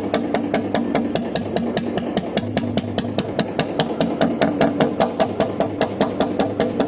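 Royal Enfield Bullet 350 BS6 single-cylinder engine idling with its idle speed set low, the exhaust thumping steadily about six times a second through a long Punjab silencer and round C-type bend pipe.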